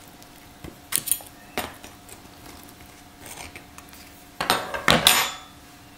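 Kitchen knife and fork clinking and scraping on a glass plate while cutting through a baked stromboli: a couple of sharp clinks about a second in, then a louder clatter near the end.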